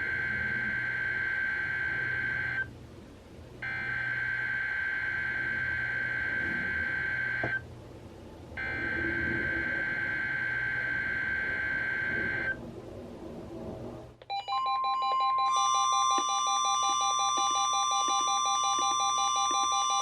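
Three SAME header data bursts of a NOAA Weather Radio Required Weekly Test, each a high-pitched buzzing data tone of about four seconds with short gaps between them, heard through several weather radios at once. About fourteen seconds in, the radios' alert alarms start together: a layered mix of steady tones and fast beeping.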